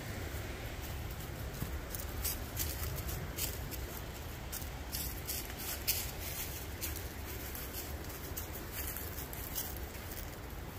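Hiking footsteps crunching through dry leaves and twigs: a run of irregular, crisp crackles over the steady rush of a creek running high.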